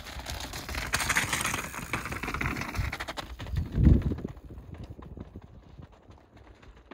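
Mountain bike being ridden over a rough, rocky trail: tyre rolling noise with rattling and sharp clicks from the bike, and one heavy thump just before four seconds in as a wheel hits the ground or a rock.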